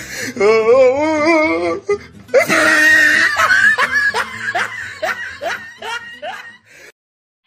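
Loud laughter: a long wavering laugh, then a burst of 'ha-ha' pulses that slows and fades out, cutting to silence just before the end.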